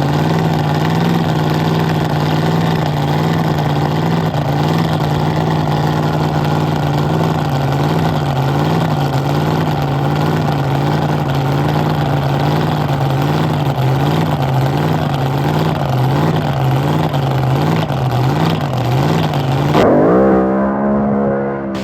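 Drag boat engine running at a lumpy idle, its pitch wavering up and down in a steady lope, then revving up about twenty seconds in.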